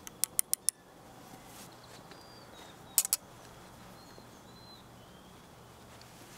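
Loading a muzzleloading rifle at the muzzle: a quick run of four light, sharp taps just after the start, then a louder double tap about three seconds in, from the powder measure, patch and short starter against the barrel. Faint bird chirps sound in the background.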